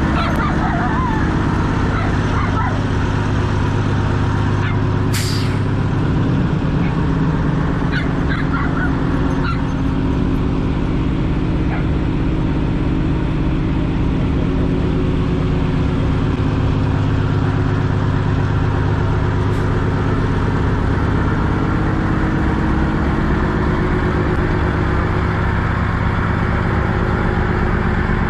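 Semi truck's diesel engine idling steadily, with a brief click about five seconds in.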